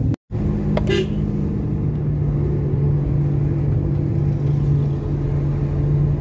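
Steady low engine and road drone from inside a moving car, with rumble on the phone's microphone. The sound cuts out completely for a moment just after the start, and there is a short click about a second in.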